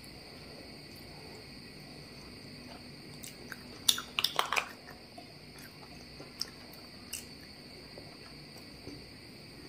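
Steady high-pitched chirring of crickets, with a quick cluster of loud sharp clicks and crackles about four seconds in. A few faint clicks of eating by hand follow.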